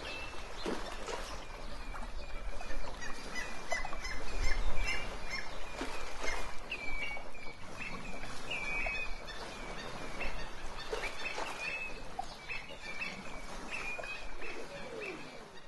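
Many small birds chirping, short calls following one another quickly, over a low steady rumble.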